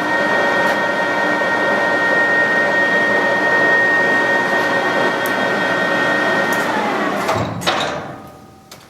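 Victor 1860E gearhead lathe running with its spindle at 530 RPM, the headstock gears giving a steady whine of several tones. About six and a half seconds in it is shut off: the whine falls in pitch as the spindle coasts down, with a sharp knock just after.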